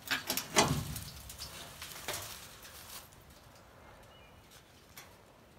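Corrugated tin sheet being lifted off the ground: a cluster of rattling clatters in the first second, the loudest about half a second in, then lighter crackles that die away by about three seconds.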